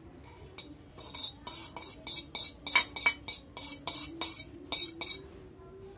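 Rapid clinking and scraping of a utensil against a ceramic plate as spices are knocked off it into a mixing bowl, about four ringing clinks a second, stopping about five seconds in.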